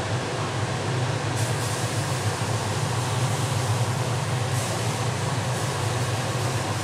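Steady low hum under an even hiss, unchanging throughout, with two faint brief rustles about a second and a half in and again near four and a half seconds.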